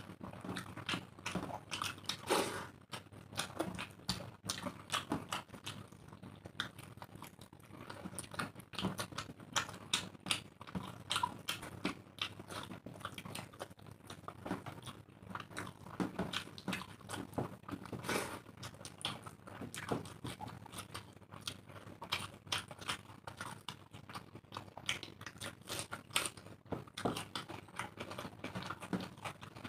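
Two people eating rice and egg curry by hand: an irregular, continuous run of wet chewing and lip-smacking clicks, with the squelch of rice being mixed into the curry by hand.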